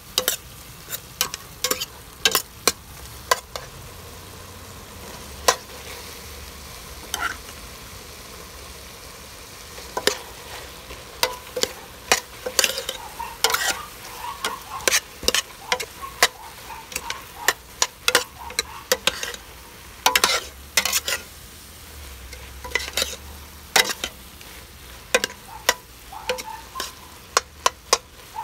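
Metal spoon stirring food sautéing in a stainless steel pot: frequent clinks and scrapes of the spoon against the pot over a steady sizzle of frying.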